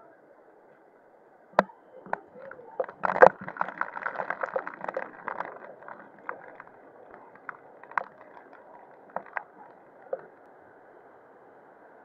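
Waterfall and mountain stream rushing steadily. Over it comes a run of sharp clicks and knocks, densest and loudest from about three to five seconds in, then scattered until about ten seconds in.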